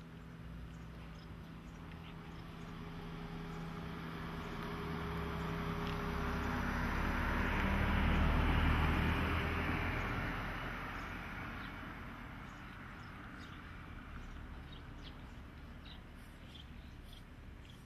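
A passing vehicle's rumble, swelling gradually to a peak about eight seconds in and then fading away, with a steady low hum under it early on.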